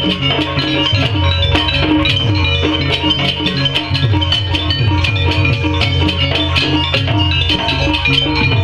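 Music accompanying a barong dance: drums, ringing metallic tuned percussion and a deep bass line, playing continuously with frequent sharp strokes.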